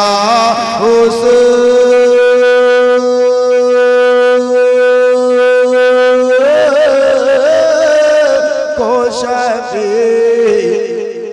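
A man singing a naat unaccompanied into a microphone: he holds one long high note for about five seconds, then breaks into quick wavering, sliding ornaments that fall away near the end.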